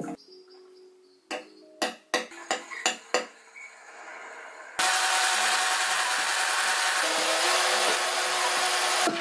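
A few sharp clicks and knocks, then about five seconds in a cordless drill starts boring into a mahogany side panel, running steadily for about four seconds and stopping suddenly near the end.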